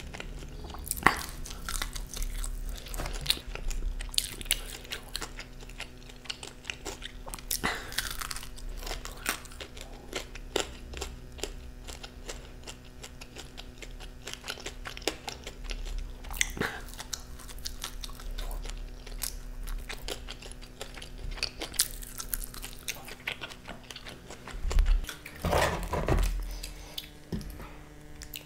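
Close-miked eating sounds: a person biting and chewing crispy fried chicken, with sharp crunches every few seconds and softer wet chewing between them. There is a louder burst of crunching and handling near the end.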